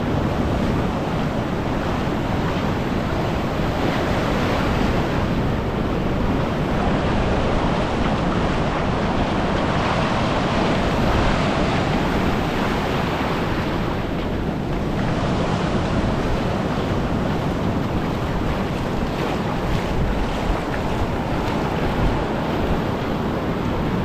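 Sea surf breaking and washing up a sand beach, with wind buffeting the microphone. The wash swells louder a couple of times, strongest about ten seconds in, then eases.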